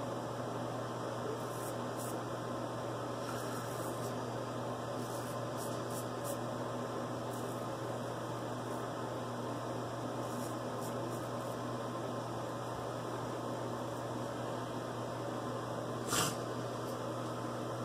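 Steady hum and hiss of room noise, with faint scratchy strokes of a vintage Frederick Reynolds straight razor scraping lathered stubble through the first part. One sharp knock about sixteen seconds in.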